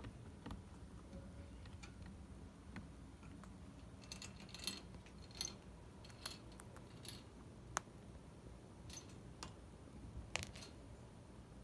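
Chinchillas moving about a wire cage: faint, scattered crisp clicks and rustles, sparse at first and more frequent from about four seconds in.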